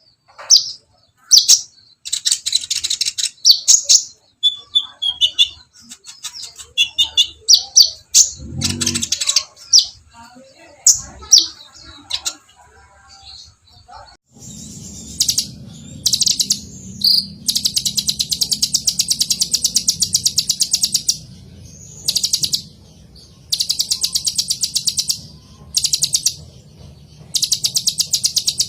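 Kolibri ninja sunbird singing: sharp high chirps and short twitters, then from about halfway long, very fast, high trilling runs repeated several times. A low steady hum runs under the second half.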